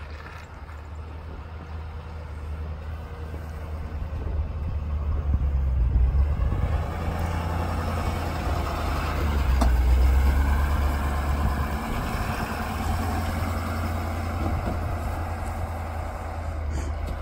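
Ford 6.7L Power Stroke V8 turbo-diesel in a 2017 F350 dually running as the truck drives through snow with a plow. It grows louder as the truck passes close by, loudest from about six to ten seconds in.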